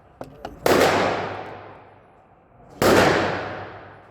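Two loud, sudden bangs about two seconds apart, each dying away in a long echoing tail, with a few light clicks just before the first.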